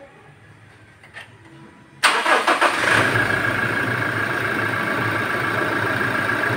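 Toyota Hilux engine started about two seconds in: a brief crank, then it catches and settles into a steady idle with a thin whine over it.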